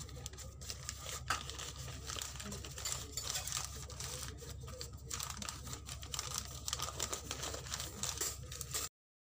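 A sheet of paper crinkling and rustling as hands press and fold it down over a bowl of sifted flour, with a steady crackle of small clicks. It cuts off suddenly near the end.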